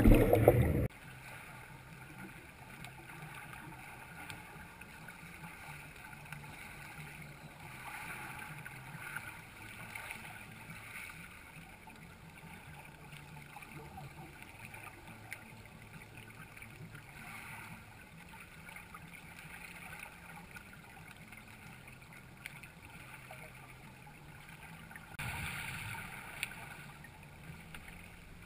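Loud noise for about the first second as the camera goes under, then faint, muffled underwater sound from the camera's waterproof housing resting on the lake bottom. A low steady hum swells a little now and then, most plainly near the end.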